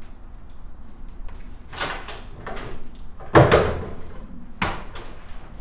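Rummaging through a cupboard: a few knocks and clatters of cupboard doors and the things inside, the loudest about three and a half seconds in.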